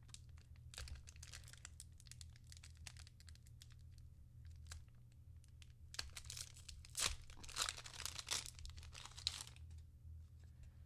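A hockey trading card pack's wrapper being torn open and crinkled, with small clicks and rustles of handling, then louder tearing and crinkling about six seconds in that runs for around three seconds.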